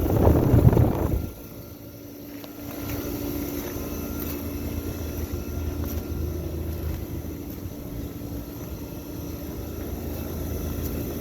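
Outdoor air-conditioning condensing units running: a steady mechanical drone of fan and compressor with a low hum. A loud rushing noise in the first second cuts off sharply.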